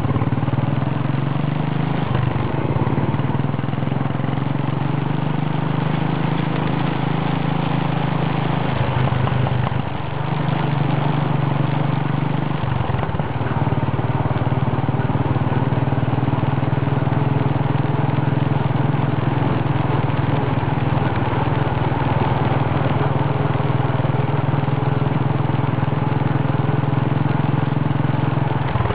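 Royal Enfield single-cylinder motorcycle engine running steadily under way, heard from on the moving bike. The engine note steps in pitch a few times, with a brief dip in level about ten seconds in.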